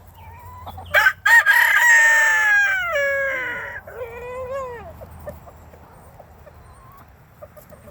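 Rooster crowing once: a long, loud call starting about a second in that falls in pitch and trails off.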